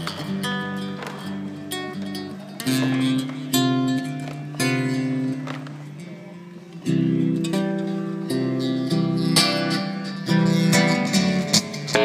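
Acoustic guitar strumming chords, each struck sharply and left to ring before the next, a second or two apart.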